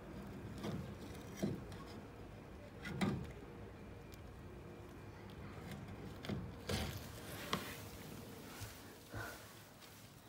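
Scattered knocks and scrapes of a white plastic boiler flue elbow being worked loose and handled, over a faint steady hum.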